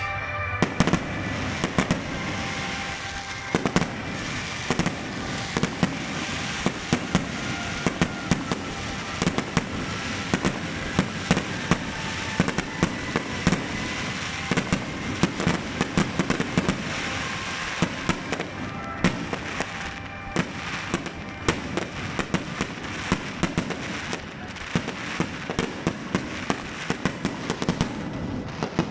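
Fireworks display: aerial shells bursting overhead in a rapid, continuous barrage of sharp bangs, several a second, over a steady rumble of earlier bursts.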